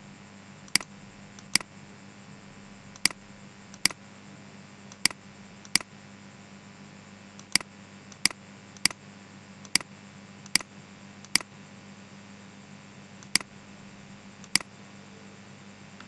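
Computer mouse clicking: about fourteen single, sharp clicks at uneven intervals, the kind made while placing the points of a lasso selection one by one. A steady low hum and faint hiss run underneath.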